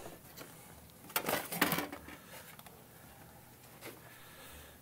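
Handling of a Gaggia Titanium super-automatic espresso machine as its side service door is swung open: a short run of clicks and knocks about a second in, then a single faint click near the end.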